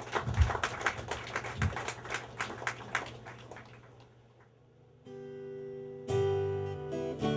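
Applause fading out after a speaker, then strummed acoustic guitar chords ringing out, starting about five seconds in.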